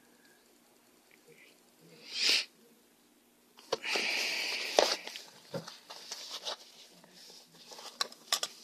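Handling noise as the sunglasses case and shoe box are moved about: a short hiss about two seconds in, then a longer rustling scrape with a sharp click in it, followed by scattered small clicks and knocks.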